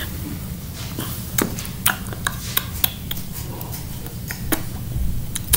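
A dozen or so light, irregular clicks and taps over a low steady hum, the sound of small things being handled and shifted close to the microphone.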